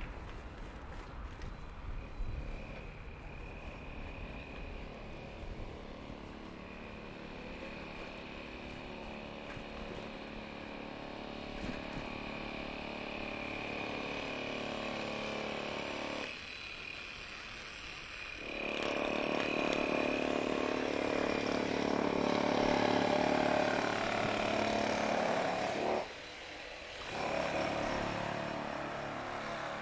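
Street traffic and road noise heard from a moving bicycle, with a faint steady high tone running through it. In the second half a louder passage cuts out abruptly for about a second, then returns.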